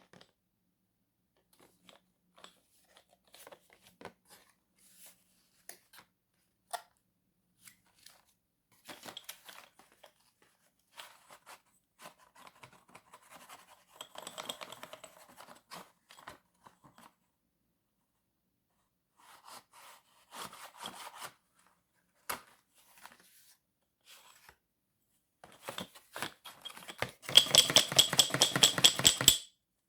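Chalk tapping for ASMR: scattered single crisp taps and short clusters of light chalk knocks and scratches, then a fast, louder run of rapid tapping for about two seconds near the end.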